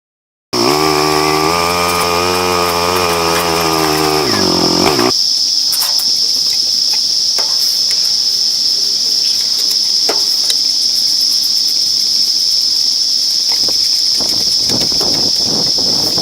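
Chorus of 17-year periodical cicadas: a loud, steady, high-pitched drone that starts abruptly about half a second in. For the first five seconds or so an engine runs under it with a slightly wavering pitch, then stops.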